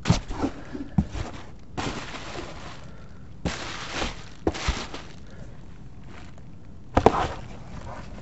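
Bubble wrap and cardboard packaging crinkling and rustling as shock absorbers are unpacked from a box, in several separate bursts, the sharpest at the very start and about seven seconds in.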